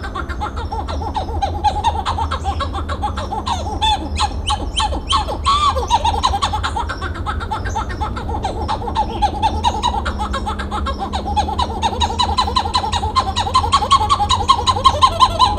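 Titi monkey (Callicebus) calling: a long, fast series of short repeated notes, which grows louder with arching whoops near the end.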